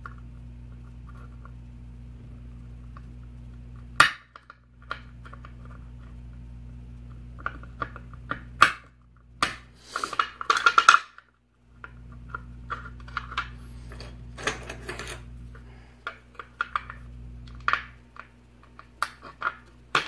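Small metallic clicks and scraping of snap-ring pliers working a tight retaining clip off the back of a brass Yale lock cylinder, over a steady low hum. There is a sharp click about four seconds in and a busier run of clicks and scrapes between about eight and eleven seconds.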